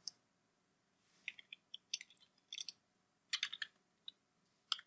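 Computer keyboard keystrokes: faint, irregular clicks, some single and some in quick runs of several keys.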